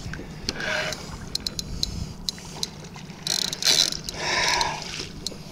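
Fishing reel clicking in irregular sharp ticks as a hooked roosterfish pulls against it, with a few short bursts of water noise.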